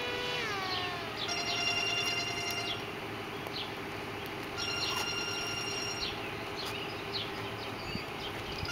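Loud warning signal with several steady notes at once: a falling wail about half a second in, then three blasts of the same chord, each about a second and a half long, over a steady low tone.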